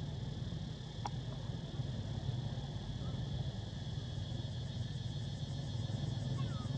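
Steady low hum of an idling engine, with a constant high insect drone over it and a single sharp click about a second in.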